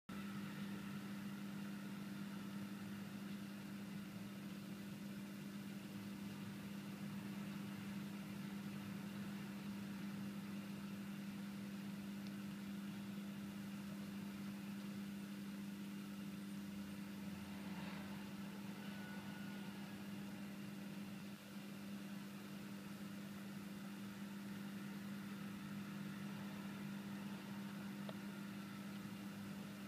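A steady low machine hum with no change in pitch or loudness.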